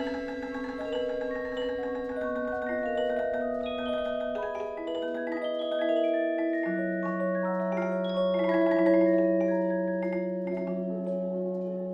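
Slow background music of overlapping, long-held ringing notes that enter one after another, with a deeper note joining about halfway through.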